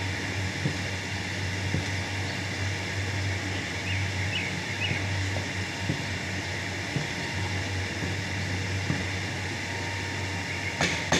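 A wooden paddle beating and stirring thick harees (wheat porridge) in a large aluminium pot, with occasional soft knocks, over a steady low hum. Near the end come a few sharp knocks in quick succession as the paddle is lifted out.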